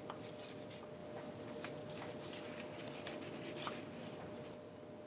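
Faint scratchy rubbing and a few light clicks of small machine parts being handled and fitted back together, over a steady faint hum.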